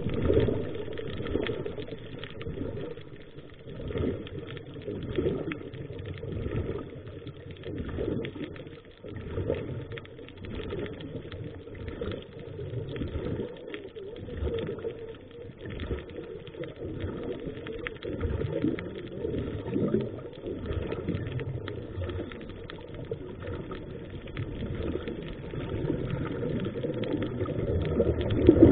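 Muffled underwater rush of a scuba diver's exhaled bubbles from the regulator. It swells and fades irregularly every second or two, with many small crackling clicks throughout.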